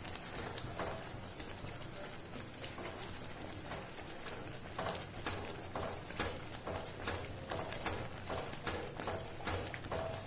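Thick rava kesari, semolina cooking in sugar syrup, bubbling in a non-stick kadai as a wooden spatula stirs it: irregular plopping pops of bursting bubbles that come more often in the second half. Bubbles like these show that the semolina is cooked through.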